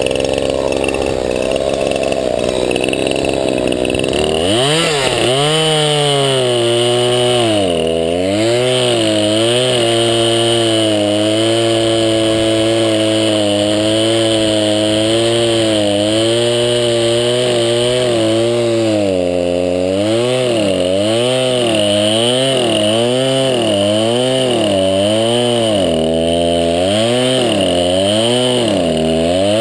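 Craftsman 50cc two-stroke chainsaw with a 20-inch bar cutting firewood at high throttle. From about four seconds in, its engine note rises and dips over and over as the chain loads up in the cut and frees again.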